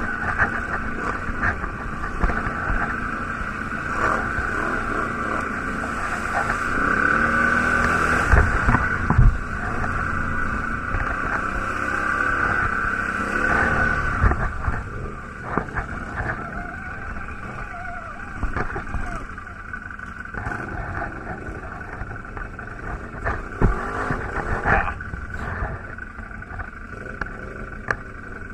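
Quad bike (ATV) engine running while riding a rough dirt trail. The engine speeds up and eases off with the throttle, and scattered knocks and rattles come from the bumps. About halfway through it drops to a quieter, slower run.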